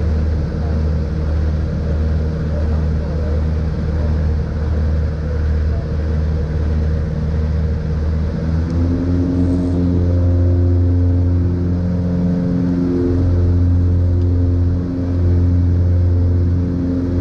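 A twin-engine piston airplane's engines and propellers droning in the cockpit, with a pulsing beat in the low hum for the first half. About nine seconds in the note changes and evens out, and a higher hum joins it. The uploader calls the propellers slipping.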